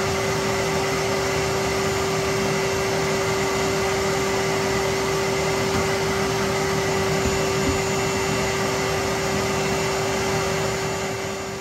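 Electric sander running steadily with a constant motor hum, sanding down dried plaster patches around recessed ceiling-light holes. It quietens near the end.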